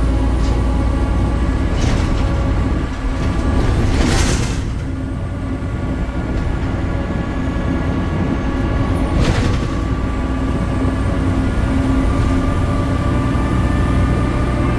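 BredaMenarini Avancity Plus city bus under way, its Deutz Euro 5 diesel and ZF gearbox giving a steady drone with a high whine over it. Two short hisses cut in, about four and nine seconds in.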